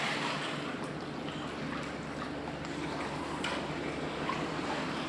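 Water lapping and trickling around a small boat.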